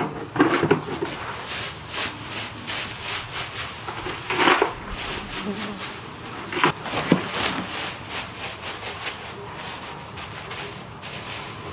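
Dry used wood-chip bedding rustling and crunching as it is scooped up by hand from a barn floor and dropped into a plastic pail, in irregular bursts with a few louder scoops.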